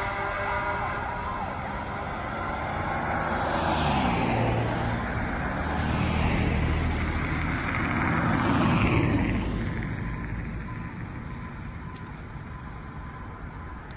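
A few passenger cars driving past one after another, their tyre and engine noise swelling and fading, the loudest pass about nine seconds in. A fire engine's siren fades into the distance in the first second.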